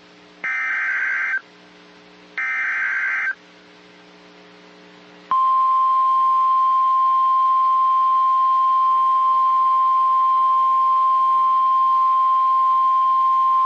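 NOAA Weather Radio Specific Area Message Encoding (SAME) header: two short digital data bursts, each about a second long, then, from about five seconds in, the steady 1050 Hz Weather Radio warning alarm tone, which signals that a warning follows, here a severe thunderstorm warning.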